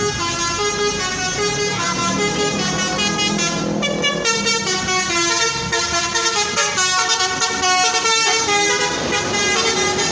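Multi-trumpet telolet horn on a CS Trans bus playing a fast melodic tune of short notes that step up and down in pitch.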